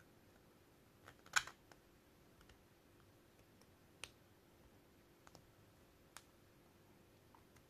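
Short plastic clicks and taps as a PTFE tube is pressed by hand into the slots of a 3D-printed glide plate. The sharpest click comes about a second and a half in, with a few fainter ones later.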